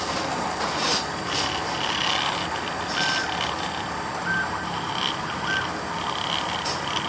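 Homemade micro CNC machine running: its motors whine in short high tones that start and stop as the axes move, over a steady mechanical noise with scattered clicks.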